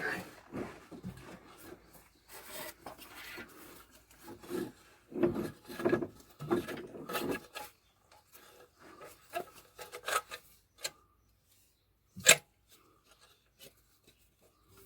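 Metal parts and tools being handled on a van engine, making irregular scraping and rubbing sounds with scattered knocks. One sharp clank comes about twelve seconds in.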